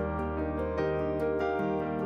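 Background music: sustained chords over a held low bass note, with a light ticking beat.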